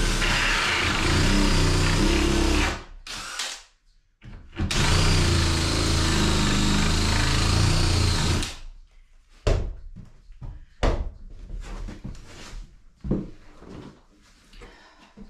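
DeWalt drill boring into wood in two long runs, its motor whine wavering under load, with a brief blip of the trigger between them. After that come several separate knocks and clatters as tools are handled and set down.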